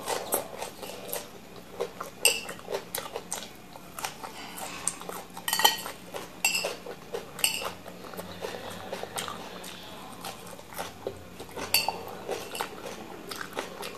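A metal fork clinking and scraping against a bowl of leafy salad, in scattered sharp clinks, a few of them ringing briefly.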